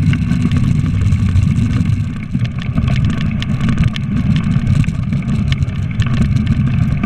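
Dog sled running over a packed snow trail behind a team of Siberian huskies: a steady low rumble from the runners and wind on the sled-mounted camera, with scattered ticks and scrapes.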